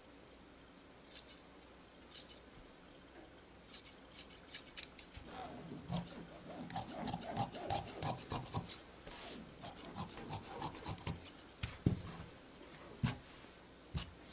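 Tailor's shears cutting through knit fabric: a few single snips, then a quick run of blade snips with cloth rustling as the fabric is handled. A few dull knocks come near the end.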